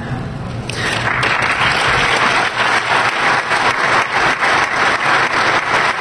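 A large audience applauding, starting about a second in and building to steady, dense clapping.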